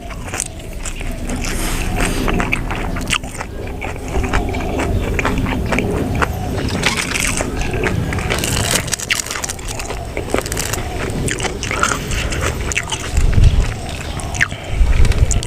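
Loud close-up chewing of buffalo-meat larb: a busy run of sharp mouth clicks and smacks with crunching bites.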